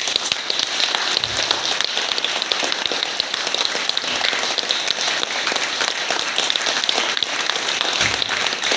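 Audience applauding: a steady, dense clapping that starts right as the song ends.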